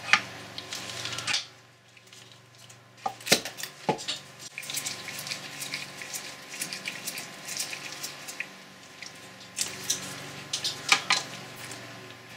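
Steel gears and fittings of a Boxford lathe apron clinking and clicking as they are handled and fitted by hand, with a few sharper metal knocks about three seconds in and near the end.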